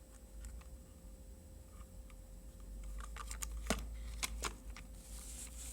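Quiet room tone with a low steady hum and a few faint sharp clicks and taps in the second half, like small handling noises.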